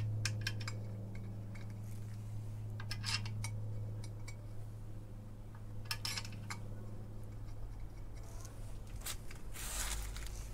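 Small metal clinks and scrapes as new pressure-plate bolts are started by hand into a flywheel, coming in short clusters every few seconds, over a steady low hum.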